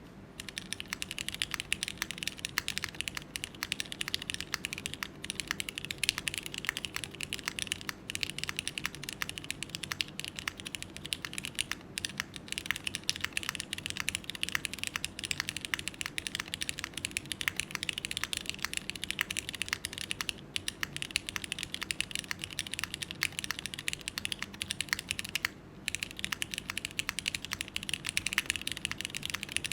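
Continuous fast typing on a Neo65 Core Plus mechanical keyboard, plateless and gasket-mounted, with Cherry MX2A Black linear switches under GMK keycaps: a dense run of key clacks with one short pause near the end.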